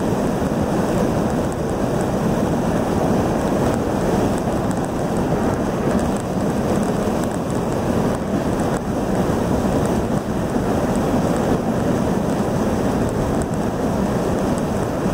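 Steady wind and road noise inside a car cruising at highway speed, an even rushing sound with no change in pace.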